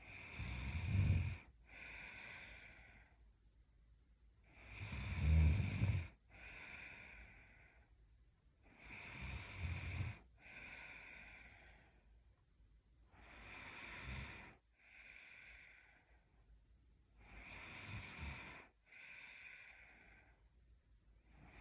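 A sleeping woman snoring, with five slow breaths about four seconds apart. Each is a snore with a low rattle followed by a softer breath, and the snores grow quieter after the first two.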